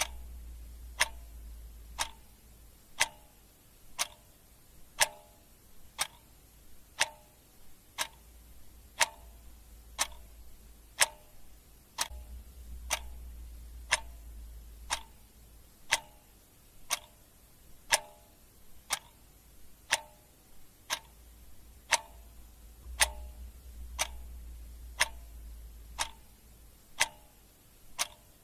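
Clock ticking steadily once a second, alternating a sharper tick with a slightly lower tock.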